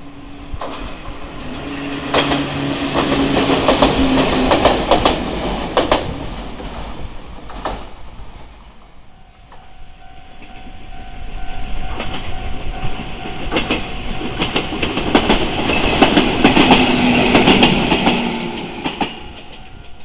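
Electric train passing a level crossing, its wheels clacking over the rail joints as the sound swells and fades, then a second train passing the same way, with the crossing warning bell ringing steadily behind.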